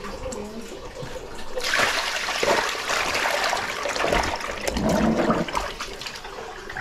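Water splashing and sloshing, starting suddenly about a second and a half in, with a few low thuds.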